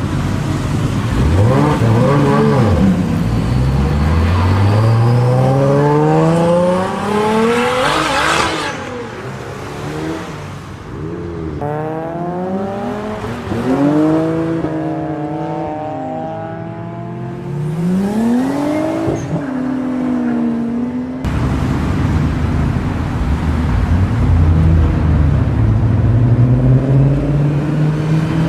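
Toyota Supra MK4's straight-six engine pulling hard, its pitch climbing steeply to a peak about 8 seconds in, then several shorter rises and falls of revs. In the last several seconds it switches to a steadier, deeper running note.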